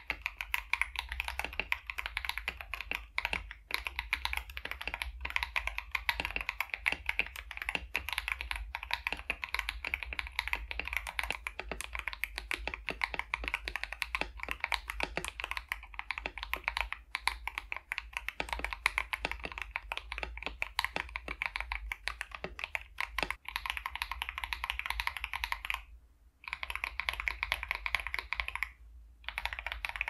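Fast continuous typing on a KBD67 Lite 65% mechanical keyboard fitted with Akko V3 Cream Blue tactile switches, heard both stock and lubed: a dense run of keystroke clacks, with two short pauses near the end.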